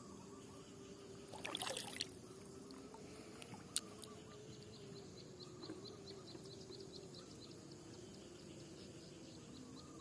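Outdoor ambience with insects chirping in a steady rhythm of about five chirps a second over a low, wavering hum. A short rustling burst comes about a second and a half in, and a single sharp click comes near four seconds.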